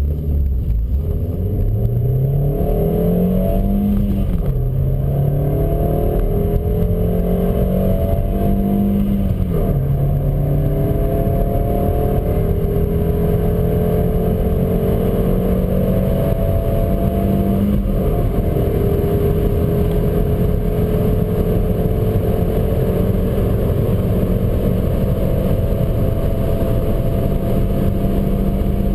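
Opel Astra G's 1.6-litre four-cylinder petrol engine under hard acceleration, its note climbing steadily through the gears. It drops back at three upshifts, about 4, 9.5 and 18 seconds in, and each higher gear climbs more slowly.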